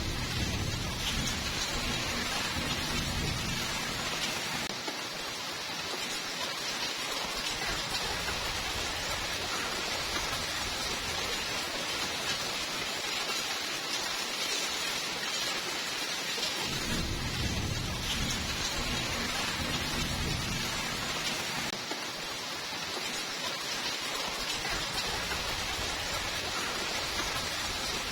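Steady rain falling, a constant hiss of raindrops. Low thunder rumbles twice: once for a few seconds at the start and again about 17 seconds in.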